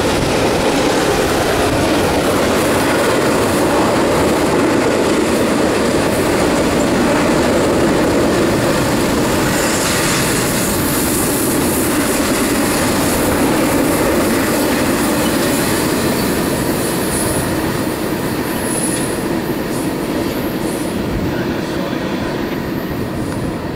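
CSX double-stack intermodal freight train's container cars rolling past on the rails, a steady noise of steel wheels on track that eases a little as the last cars go by.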